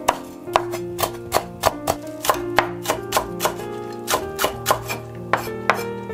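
Kitchen knife chopping green onion tops on a wooden cutting board, about three sharp knocks a second, over background music with held notes.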